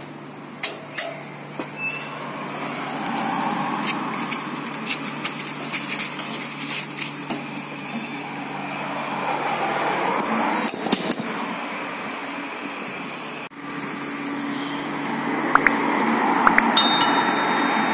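Road traffic passing, swelling and fading, with scattered small clicks and knocks from handling the vending machine's locker door and egg tray.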